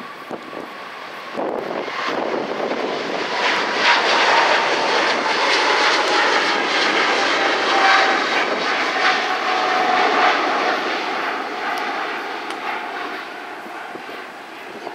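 Boeing 777-300ER's GE90 turbofan engines at takeoff thrust as the airliner climbs out: a loud jet roar that swells about two seconds in, peaks midway with a whine slowly falling in pitch, then gradually fades.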